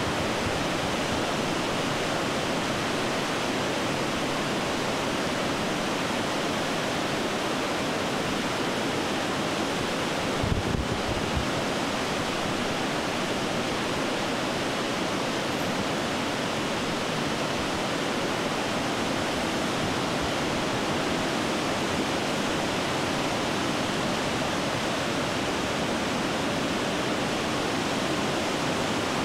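The flood-swollen Winooski River rushing over falls and rapids: a steady, unbroken rush of water. A brief low thump comes about ten seconds in.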